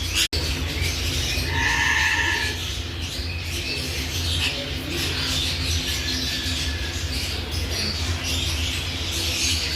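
Budgies chattering and chirping, with one clearer whistled note about two seconds in, over a steady low hum.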